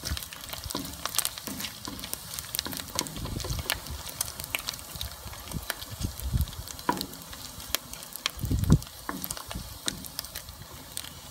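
Pork belly pieces sizzling and popping as they fry in their own rendered fat in a wok, stirred with a wooden spoon; the pork has browned and crisped in a lot of fat. A few dull bumps, the loudest about three-quarters of the way through.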